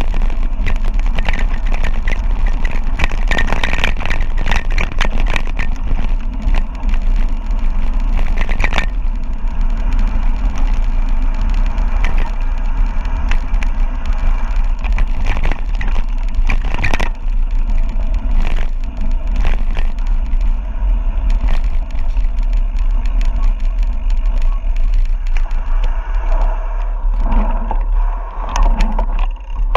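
Wind rushing over the camera microphone on a fast mountain-bike descent, with the bike rattling and knocking over a rough gravel road throughout.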